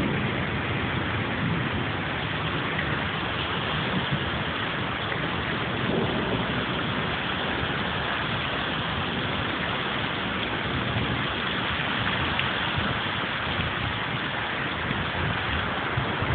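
Steady thunderstorm rain falling, an even hiss with no distinct claps.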